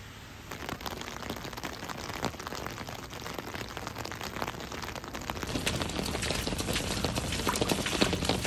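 Heavy rain, with many drops striking an umbrella overhead as sharp ticks over a steady hiss. It gets louder and denser about five and a half seconds in.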